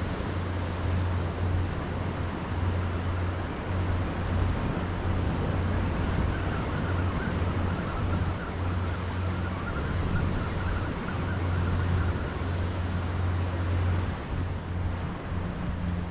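Steady low drone of a motorboat engine out on the water, heard over sea washing on the rocks and wind on the microphone.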